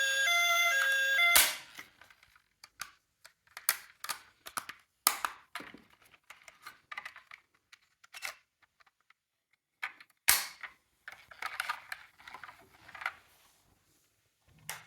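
Electronic siren tune from a toy emergency vehicle, stepping between a few pitches, cuts off with a sharp click about a second and a half in. Scattered light plastic clicks, knocks and clatter follow from the toy cars, with one louder click about ten seconds in.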